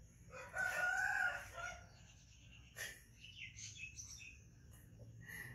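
A rooster crowing once, starting about half a second in and lasting just over a second, followed by fainter high bird chirps.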